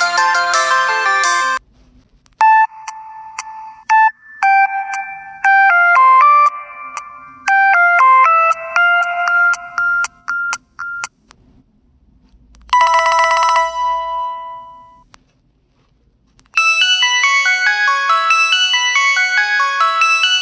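Several different electronic mobile-phone ringtones played one after another. A busy melody cuts off near the start, then a tune of single chiming notes with small pauses. About two-thirds through comes a short trilling ring with fading tones, and after a brief silence another busy melody starts.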